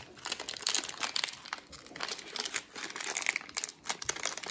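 Foil wrapper of a football trading-card pack crinkling and crackling in quick, irregular crackles as fingers pick at and peel apart its sealed top.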